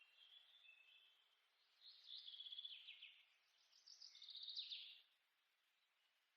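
Faint birdsong: a few high chirps, then two short trills of rapid repeated notes.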